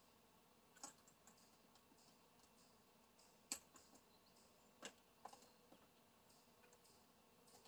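Near silence broken by a handful of faint, sharp clicks and taps from the bimini top's straps and frame fittings being handled and adjusted, the loudest about three and a half seconds in.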